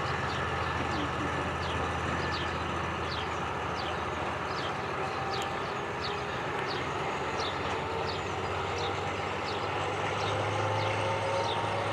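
Narrow-gauge train's diesel locomotive running with a steady low hum and general rumble. Short high falling chirps repeat about once or twice a second over it.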